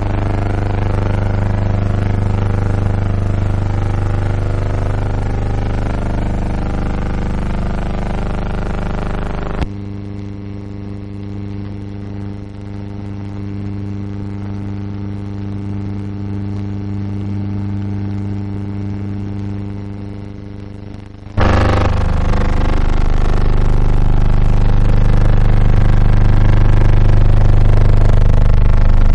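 A steady low machine-like hum with a ladder of even overtones. It drops and thins abruptly about ten seconds in, then comes back louder about twenty-one seconds in.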